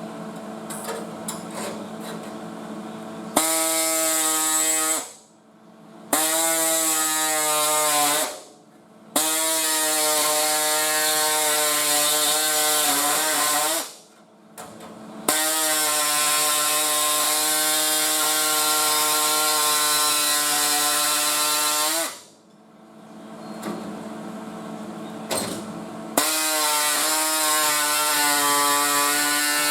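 A handheld power grinder running in five bursts of a few seconds each, with a steady whine whose pitch sags slightly under load and a bright hiss above it, typical of grinding on sheet metal. A low steady hum continues between the bursts.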